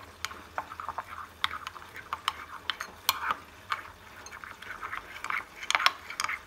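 Metal spoon stirring a cornflour-and-water slurry in a ceramic bowl: irregular clinks of the spoon against the side of the bowl, with soft scraping between.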